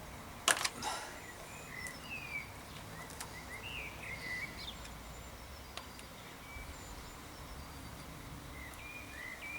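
A screwdriver prising at the plastic dust cap of a flat pedal: a sharp click about half a second in, then a few faint ticks. Birds chirp faintly in the background.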